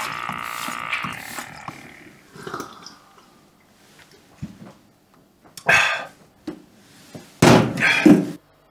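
A man making two loud, throaty noises from the back of his throat, a short one about six seconds in and a longer one near the end, after a fading tune and a few small clicks of glassware.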